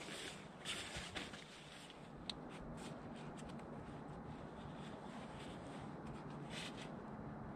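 Faint rustling and scuffing, a few short bursts in the first three seconds, then a steady low hiss.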